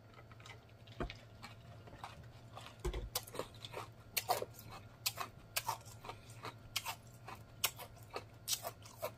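Close-miked drinking and mouth sounds: a drink sipped from a mug, then irregular wet lip smacks and mouth clicks as it is tasted, with a couple of soft thumps and a faint steady hum underneath.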